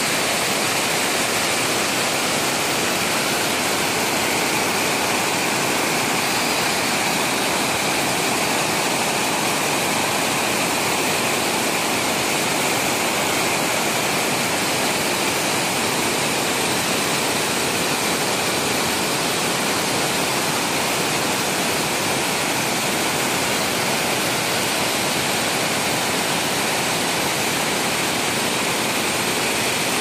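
Waterfall and water rushing down bare rock slabs, a steady, unbroken rush of falling and sliding water.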